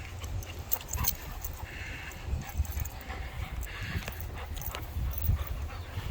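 Dogs moving about close by, with two short breathy sounds and scattered light clicks over a steady wind rumble on the microphone.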